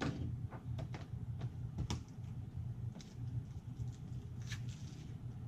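Cardboard game cards being handled and set down on a table: a scatter of light taps, clicks and short rustles over a steady low hum.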